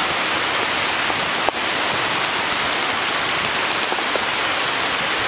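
Steady hiss of water, like rain falling on forest foliage or a nearby stream. A single sharp knock about one and a half seconds in comes from the camera being handled against clothing.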